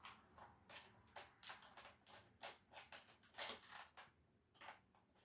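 Faint, irregular scratches and clicks of a cable knife scoring plastic cable trunking, with a slightly louder scrape about three and a half seconds in.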